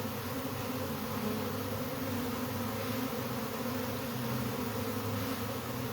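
A mass of honeybees buzzing steadily from an opened colony, a continuous hum.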